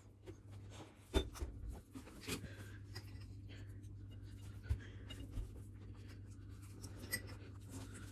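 Quiet handling sounds of cookie pieces being pressed onto a frosted cake: faint scratchy rubbing with a few soft clicks, over a steady low hum.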